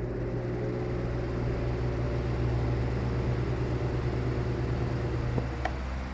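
Mainstays 12-inch oscillating table fan running on speed 2: a steady electric motor hum under the rush of air from the blades, rising slightly in pitch at the start as the motor comes up to speed. A faint click or two sounds near the end.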